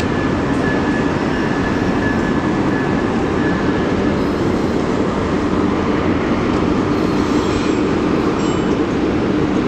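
A train running on the tracks at close range, a steady loud rolling rumble. A faint thin squeal, typical of wheels on rail, is present for the first few seconds and then fades.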